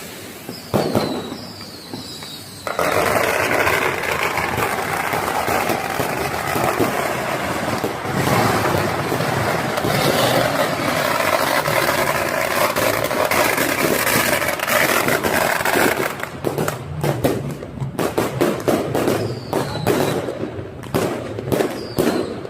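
A long string of firecrackers going off in a dense, continuous crackle for about thirteen seconds, then breaking into scattered sharp cracks near the end.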